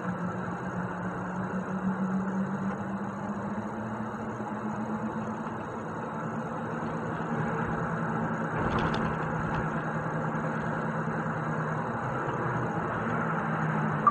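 Heavy truck's diesel engine running steadily while driving, with road noise and a single brief bump about nine seconds in.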